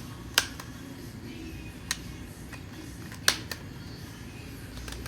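A few sharp plastic clicks and taps as the PS5 DualSense controller's parts are handled and fitted back together, three of them loud and spaced about a second and a half apart, over a low steady hum.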